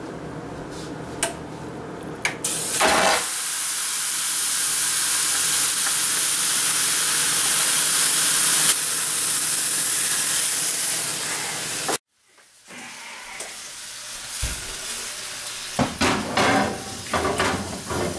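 A seasoned turkey goes into a cast iron skillet preheated to 500°F with a clunk, and the skin sears on the hot iron in a loud, steady sizzle for about nine seconds. After a sudden cut, the heavy pan knocks and clanks going into the oven, still sizzling.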